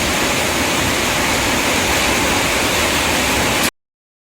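Steady, loud rushing noise that cuts off suddenly to silence about three and a half seconds in.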